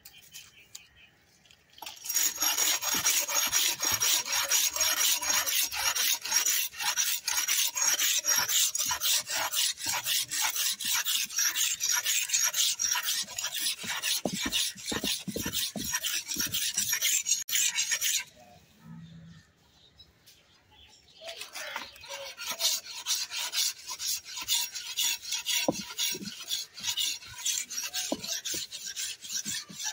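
An aruval (billhook) blade being sharpened by hand with rapid back-and-forth scraping strokes, a grating rasp. The strokes stop for about three seconds a little past the middle, then start again, somewhat quieter.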